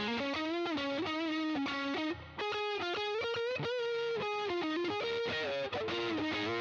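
Electric guitar with custom single-coil pickups, played through overdrive: a melodic lead line with string bends and wide vibrato, broken by a short gap about two seconds in.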